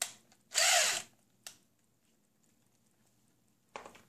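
Cordless drill briefly spinning the screw in a blue plastic wall plug: one short burst of about half a second that speeds up and winds down, with clicks before and after it. A short knock comes near the end.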